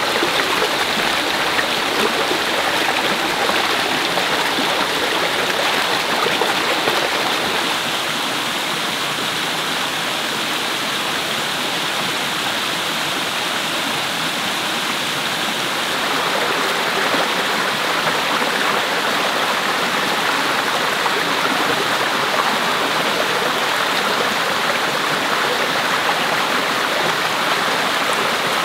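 Flowing river water rushing steadily, an even sound with no breaks.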